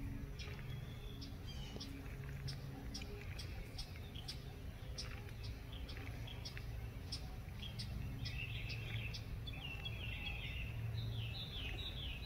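Birds chirping: scattered short, sharp chirps, then from about eight seconds in a rapid series of repeated call notes, over a low steady background hum.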